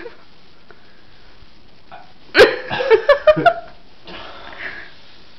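A person's sudden loud vocal outburst about halfway through, starting sharply and breaking into four or five quick pulses over about a second.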